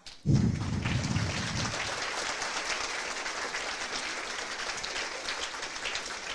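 A lecture-hall audience applauding, setting in sharply just after the start and carrying on steadily.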